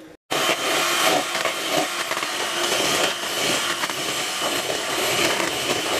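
Electric hand mixer whisking egg whites in a plastic bowl, its motor and beaters running steadily as the whites froth up toward meringue. It starts suddenly a moment in.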